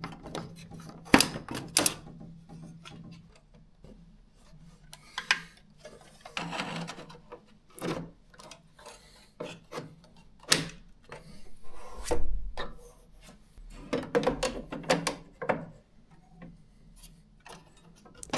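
Scattered clicks and knocks with bits of scraping as hands slide, seat and latch boards in the card slots of a Doremi ShowVault cinema server in a Christie projector, metal and plastic parts clicking into place.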